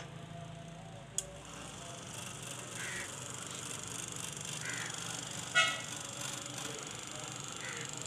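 Homemade electric butter churn (madhani) driven by a washing-machine motor, running with a steady hum and whirr as its paddle spins, a little louder from about two seconds in; a click about a second in. About halfway through there is one brief, sharp, high-pitched sound, the loudest thing here.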